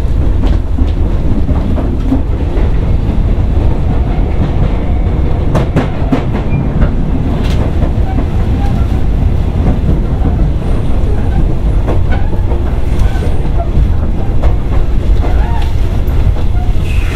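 Sotetsu old 7000 series electric train running, heard from inside the carriage: a steady low rumble of wheels and running gear, with scattered clicks from rail joints.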